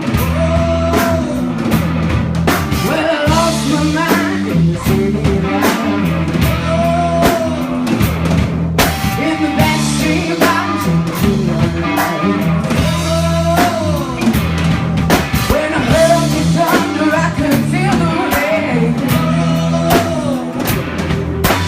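Rock band playing through an instrumental stretch between sung lines: drums keep a steady beat under guitar, and a pitched line bends up and down over the top.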